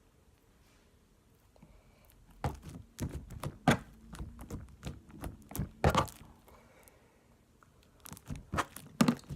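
Homemade glue slime being squeezed and kneaded by hand, making irregular sticky clicks and pops in two bursts after a quiet start.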